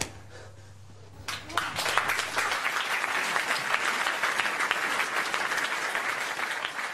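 Audience applauding, the clapping starting about a second in and holding steady.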